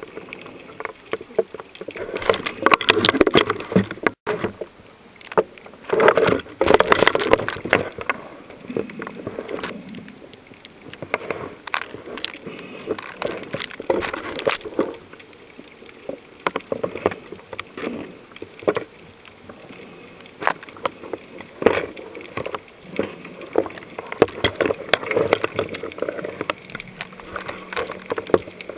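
Water sounds picked up by a camera held underwater in shallow sea: constant clicking and crackling, with swells of rushing, bubbling water a few times, loudest about two and six seconds in.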